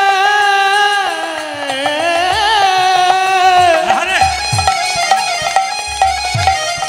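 Bengali kirtan music: a male singer holds a long note, then bends it down and wavers it back up in a drawn-out melisma, over a steady sustained accompaniment with occasional drum strokes.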